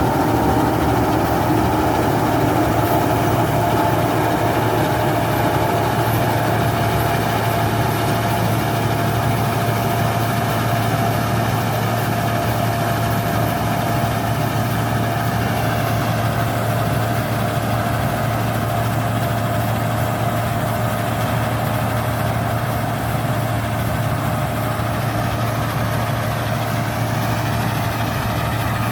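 Rice combine harvester running steadily, its engine holding an even note with a constant low hum and a higher whine over it.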